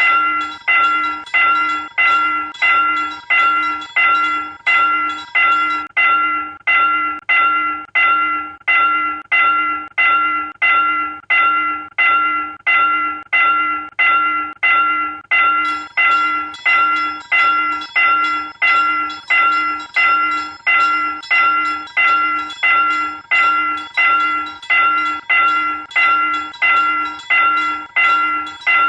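South Korean railroad crossing warning bell ringing steadily, an even ding repeated about three times every two seconds, each strike fading before the next.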